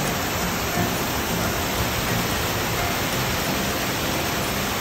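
Waterfall cascading down over rocks in several streams: a loud, steady rush of falling water.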